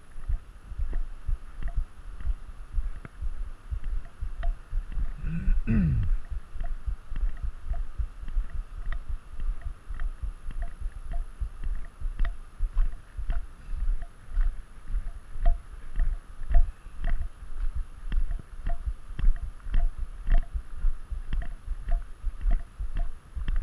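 A hiker's footsteps crunching on a gravel road at a steady walking pace, about one and a half steps a second, each with a low thump. About six seconds in there is a brief low sound that dips in pitch.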